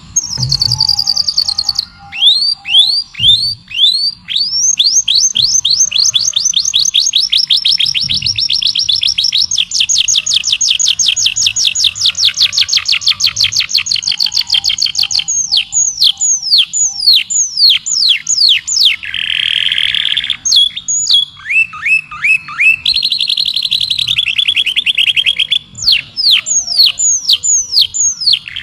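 A songbird singing: long, fast trills of repeated downward-sweeping notes, many a second, broken twice by buzzy passages.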